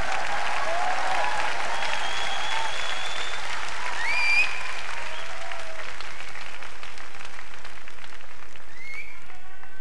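Large concert audience applauding steadily, with scattered cheers and whistles gliding up and down over the clapping; the cheering dies away toward the end.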